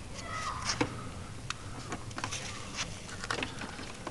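Light, irregularly spaced clicks and taps of a small pointed hand tool working at the strut fittings of a quarter-scale model biplane.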